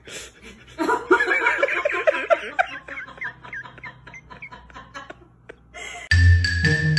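A person laughing hard in quick repeated bursts from about a second in, tapering off into faint giggles. Near the end, marimba-like music starts abruptly.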